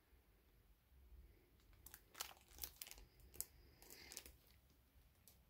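Faint crinkling of the clear plastic bag around a CGC-graded comic slab as it is handled: a handful of short crackles starting about two seconds in and stopping about four seconds in.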